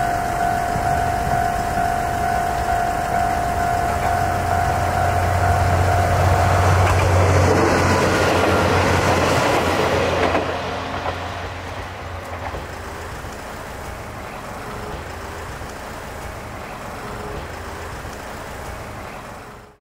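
Kanto Railway Kiha 2400 series diesel railcar approaching and passing close by, loudest about eight to ten seconds in with a deep engine hum and the rattle of wheels on rail, then fading as it runs away. A steady high whine is heard until the train arrives. The sound cuts off suddenly just before the end.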